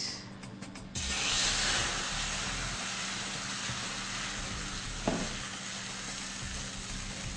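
Pancake batter poured from a ladle into a hot oiled pan, sizzling: a hiss starts suddenly about a second in and slowly fades.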